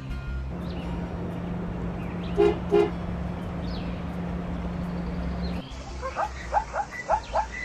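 Cartoon sound effects: a vehicle's steady engine hum with two short horn toots in its middle, then a quick run of short rising chirps, about three a second, near the end.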